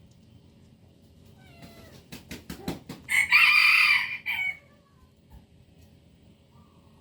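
A cat meowing: a short rising call, then a quick run of sharp clicks, then one loud, drawn-out meow lasting over a second.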